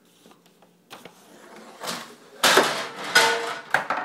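A ball running through a homemade marble-run contraption: a light knock about a second in, a rolling rattle that swells, then three loud sharp knocks in the second half as it bangs into objects, a couple of them leaving a short ringing tone.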